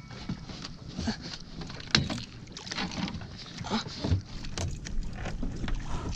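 A large striped bass being hauled out of the water in a landing net over a boat's side: water splashing and sloshing, with scattered knocks against the hull and one sharp bang about two seconds in.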